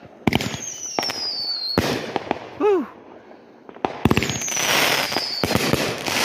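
Consumer aerial fireworks going off: a string of sharp bangs and bursts, with a falling whistle about a second in and another near four seconds in, then dense crackling.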